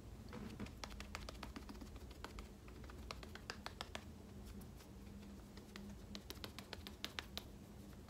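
Chanel Healthy Glow Gel Touch cushion puff patting foundation onto the face: many soft, quick, irregular taps against the skin.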